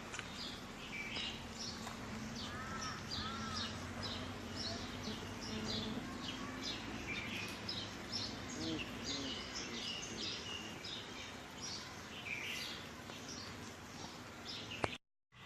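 Many small birds chirping: rapid short calls overlapping continuously, over a faint steady background hum, with a single sharp click near the end.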